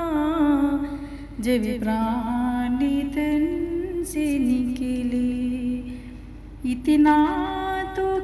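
A woman's voice singing a slow Hindi devotional bhajan, holding long wavering notes with no clear words, as background music.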